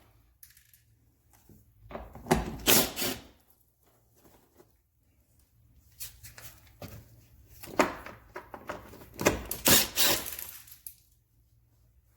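Clicks, knocks and rattles of hand tools and plastic interior trim being worked loose, in a burst about two seconds in and a longer run of them from about six to eleven seconds.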